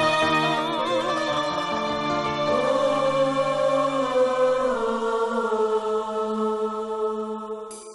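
Slow orchestral theme music of sustained held notes, some with vibrato, fading out near the end just before a new passage begins.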